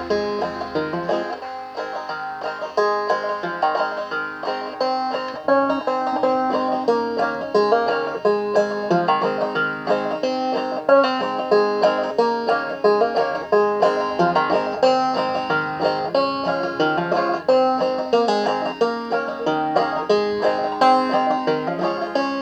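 Five-string banjo played clawhammer style: a rapid, steady stream of picked notes over a ringing drone string, playing a folk melody.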